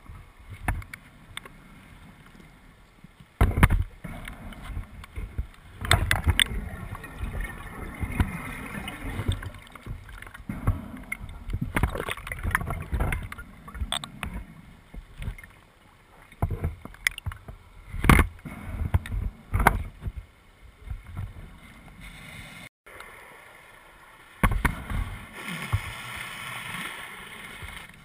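Scuba diver breathing underwater through a regulator: irregular bursts of exhaled bubbles gurgling and rumbling, with a steadier hiss near the end, and several sharp knocks.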